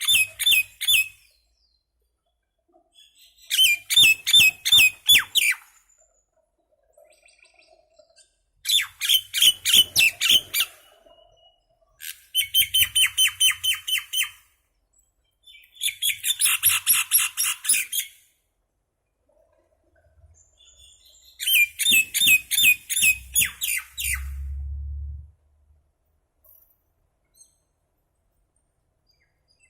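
Common myna calling in about six bouts, each a quick run of repeated notes lasting one to two seconds, with short pauses between.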